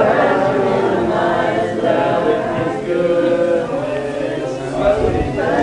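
A group of people singing a worship song together, many voices holding long notes.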